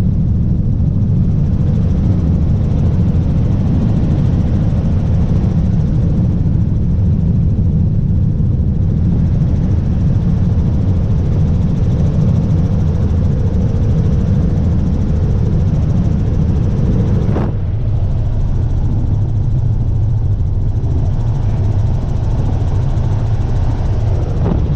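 Helicopter engine and rotor noise heard from inside the cabin in flight, loud and steady, with a brief change in tone about two-thirds of the way through.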